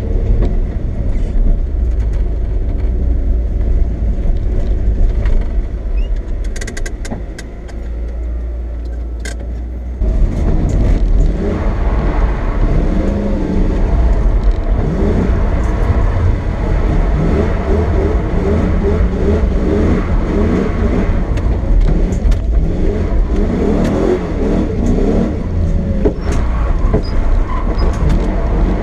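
Lexus SC400's 1UZ V8 engine running steadily at low revs. About ten seconds in it gets suddenly louder and keeps revving up and down, rising and falling in pitch, as the car is driven hard.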